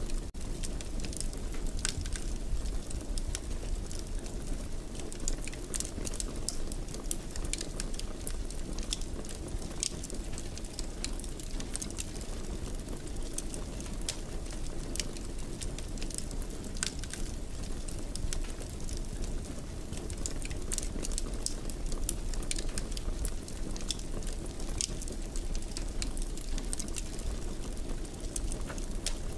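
Wood fire crackling in a fireplace: frequent small, sharp irregular pops over a steady low rumble of burning.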